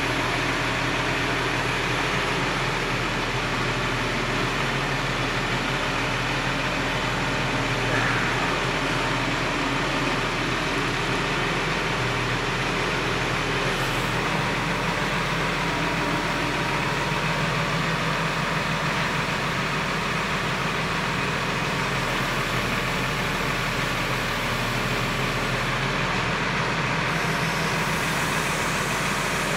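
Truck-mounted crane's engine running steadily as it works the boom setting roof trusses, a constant low drone.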